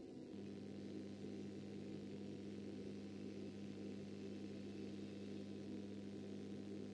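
Small, inexpensive electric pottery wheel running, a steady low motor hum that sets in about a third of a second in and holds even while the wheel spins a clay cup.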